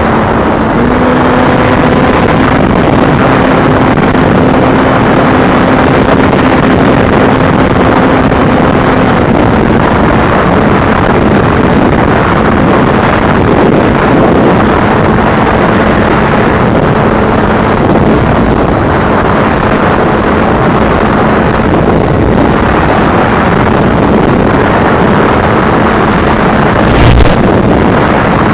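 FPV drone's motors and propellers running in flight: a loud, steady buzz with a rush of wind, its pitch shifting slightly now and then. A brief knock near the end.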